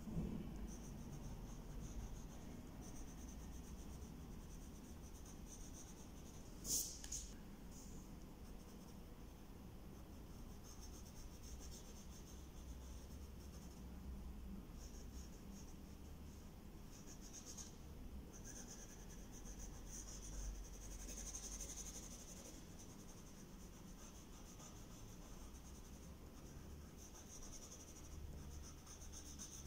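Pencil scratching on paper in runs of short drawing strokes, coming and going with brief pauses, faint throughout. One sharp click about seven seconds in.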